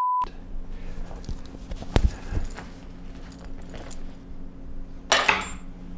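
A short beep tone at the very start, then soft cloth handling noises as a kitchen apron is taken off and bundled up. A single knock comes about two seconds in and a brief rustle near the end, over a steady low hum.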